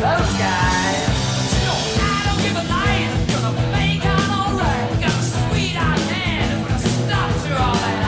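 Rock song with singing.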